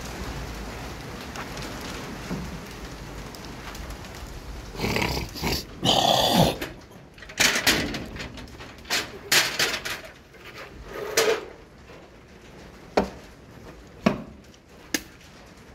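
About ten short animal calls at irregular intervals, starting about five seconds in.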